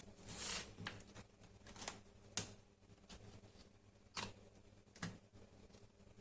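Plastic ruler being worked along the glued edge of an iPad screen to pry it loose, giving faint, scattered sharp clicks and short scrapes.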